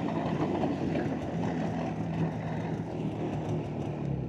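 Arctic Cat ZR 858 Catalyst snowmobile's two-stroke twin engine running at low speed, with wind rushing over the microphone. Its engine note drops lower near the end as the sled slows.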